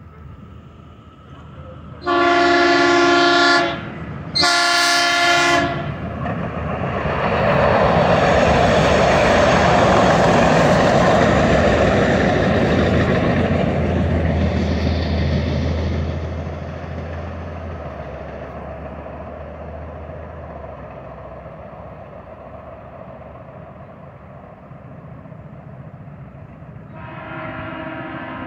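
DART light rail train sounding two horn blasts, then running past loudly with a low hum from its running gear, and slowly fading as it moves away. A fainter horn blast sounds near the end.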